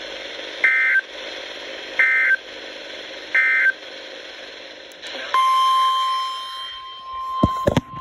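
NOAA Weather Radio end-of-message signal from a Midland weather radio's speaker: three short buzzy data bursts about 1.4 seconds apart over radio hiss, closing a flood warning. About five seconds in, a steady high alert tone begins, and a couple of sharp knocks come near the end.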